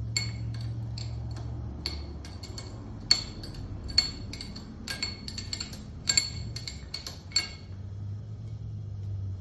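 Open-end wrench clinking against a steel screw and the positioner's jaw plate as the screw is run up: a string of sharp, ringing metallic clinks at an irregular pace that stops about seven and a half seconds in. A steady low hum runs underneath.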